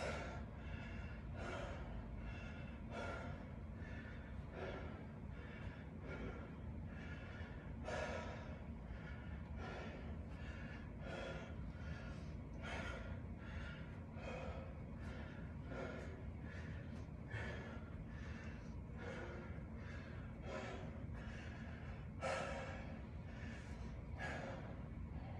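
A man breathing hard, in through the nose and out through the mouth, recovering from exertion between exercise sets; a breath a little faster than one a second, with one louder exhale about 22 seconds in.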